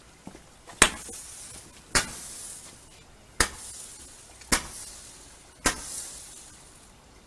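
Consumer fireworks going off: five sharp bangs about a second apart, each followed by a fizzing crackle that fades.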